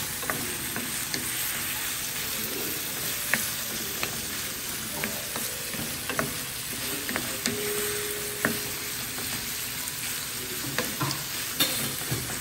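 Chicken pieces with onions and garlic sizzling as they fry in a pan, stirred with a wooden spatula that gives scattered light knocks and scrapes against the pan.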